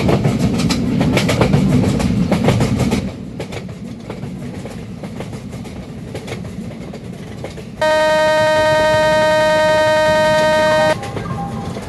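Rajdhani Express train running, with a loud rumble and clicking of wheels over rail joints that drops to a quieter rumble about three seconds in. About two-thirds of the way through, a train horn sounds one long, steady blast of about three seconds.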